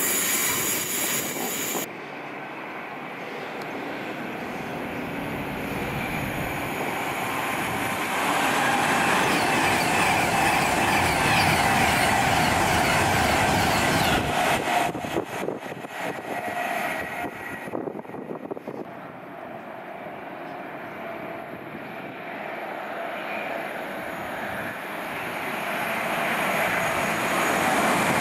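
Train passing on the main line: the rushing noise builds, is loudest about eight to fourteen seconds in, then fades with a few wheel clacks. The noise builds again near the end.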